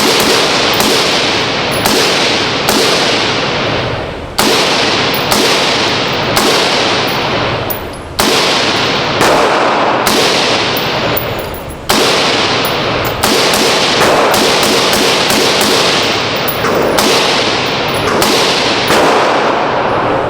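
Gunshots fired one at a time at a steady pace of about one a second, roughly twenty in all. Each is a sudden loud report with a long echo that rings on until the next shot.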